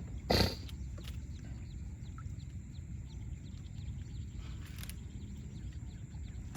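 A single knock about half a second in, then steady low outdoor rumble with many faint, short high chirps.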